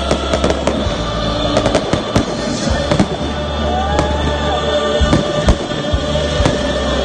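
Fireworks going off: a dense series of sharp bangs and crackles, several a second, over background music.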